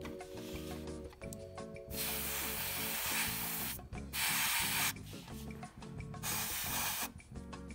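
Gravity-feed airbrush spraying light coats of semi-gloss clear coat in three short bursts of hiss: about two seconds in, around four seconds, and just after six seconds. Background music plays underneath.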